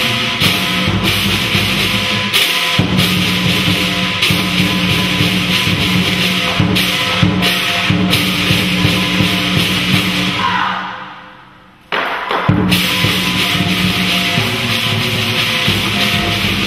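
Lion-dance percussion ensemble playing: big barrel drums beating a fast steady rhythm under loud clashing hand cymbals. About ten and a half seconds in, the sound dies away, then it comes back abruptly near twelve seconds.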